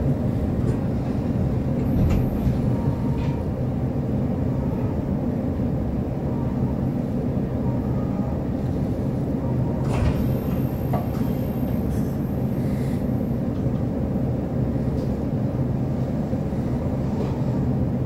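Inside an electric local train's passenger car: a steady low rumble while it creeps along at reduced speed for high winds, then comes to a halt about halfway through, with a few faint clicks.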